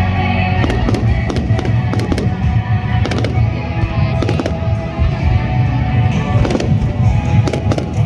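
Fireworks going off in a rapid, irregular string of sharp bangs, with music playing loudly underneath.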